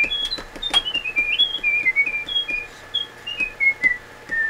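A woman whistling a tune: single clear notes stepping up and down, drifting lower toward the end, with a few light clicks.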